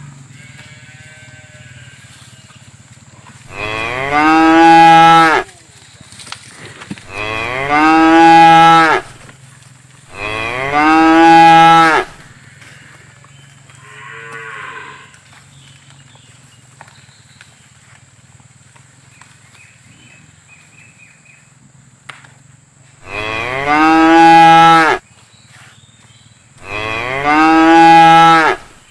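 Cows mooing: five long, loud moos, each starting softer and swelling, with two fainter calls between them.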